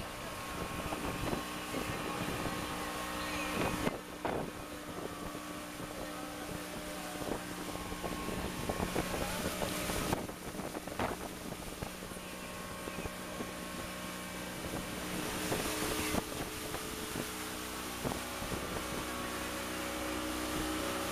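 A small motorboat's engine running steadily at speed, with wind buffeting the microphone. The sound changes abruptly a few times.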